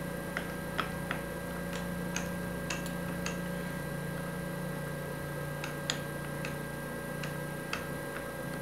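Irregular light metallic clicks and taps from a machine vise on a milling-machine table being worked with a hex key and lined up against a flat aluminum plate, over a steady low hum.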